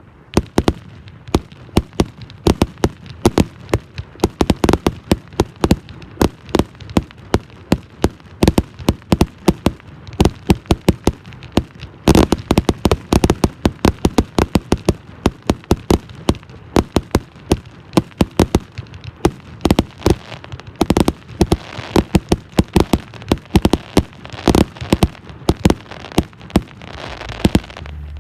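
Fireworks going off in a rapid, irregular string of sharp bangs and pops, several a second, with a denser run about twelve seconds in.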